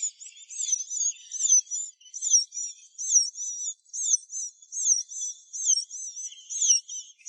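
Small bird calling with high, thin chirps that rise and fall, turning after a few seconds into a steady run of about three a second.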